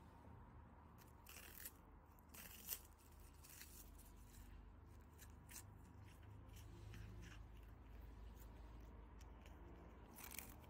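Cat biting and crunching a hard treat on a stick: faint crunches, two louder ones in the first three seconds, then scattered light clicks.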